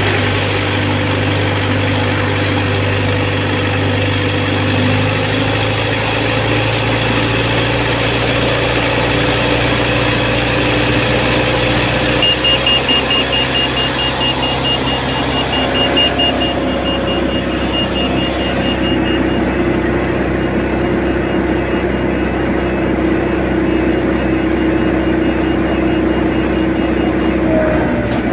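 Hydra crane's diesel engine running steadily, its note changing about five seconds in and again about twelve seconds in. A fast, high-pitched beeping starts about twelve seconds in and stops about a second before the end.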